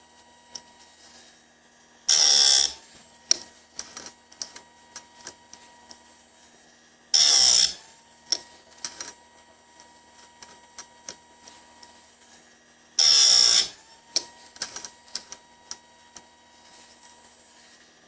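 Bench-mounted chainsaw chain sharpener's grinding wheel grinding chain teeth in short bursts of about half a second, three times roughly every five to six seconds, with a fourth starting at the very end. Light clicks between the bursts as the chain is moved on to the next tooth, over a faint steady whine from the running wheel.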